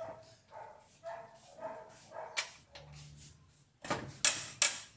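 A dog giving short repeated barks or yelps, with three loud sharp knocks in quick succession about four seconds in.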